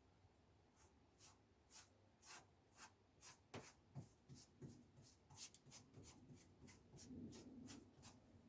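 Faint scratching and light ticks of loose model-railway ballast being spread and worked along the track by hand. They come about two a second at first and grow busier after about three seconds.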